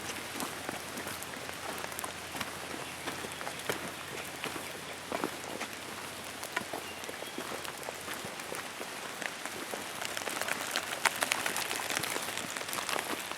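Rain falling steadily, with many close raindrop ticks that grow thicker after about ten seconds.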